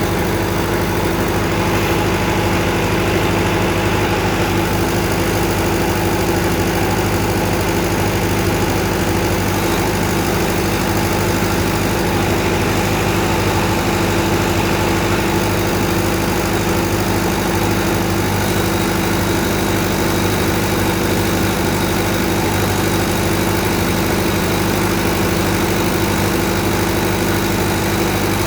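Tsuzumi TD30 30 kVA open water-cooled diesel generator, its four-cylinder diesel engine running at a steady speed. The level and pitch stay even throughout.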